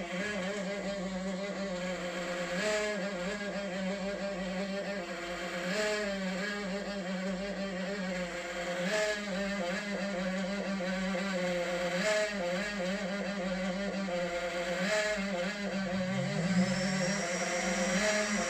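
Creality K1 3D printer's mainboard fan making a loud, strange droning hum at power-up, its pitch wavering in a repeating cycle about every three seconds. Near the end, rising tones join in.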